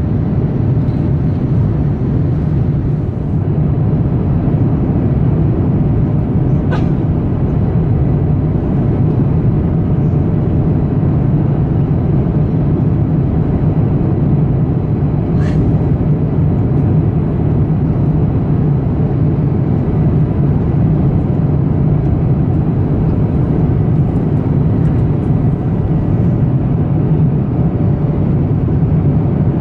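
Airbus A350 cabin noise in flight: the steady, deep drone of its Rolls-Royce Trent XWB turbofans and the airflow, heard from inside the cabin at a window seat. Two faint clicks come through, one about 7 seconds in and one about 15 seconds in.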